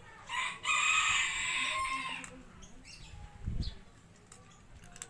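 A rooster crowing: one long call with a short catch near its start, held for about two seconds. A short low thump follows about a second later.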